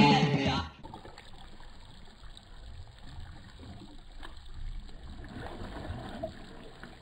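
A song ends in the first second, then faint bubbling and gurgling: a scuba diver's exhaled air bubbles breaking the surface of the water in a hole cut through lake ice.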